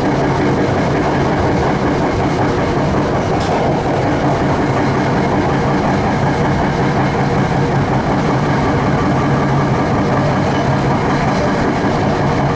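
Passenger train running along the track, heard from on board: a steady rumble with a low hum underneath. A single sharp click sounds about three and a half seconds in.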